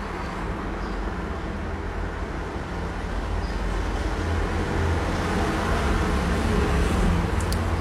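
Steady low rumble of a motor vehicle in the street outside, growing slightly louder over the last few seconds.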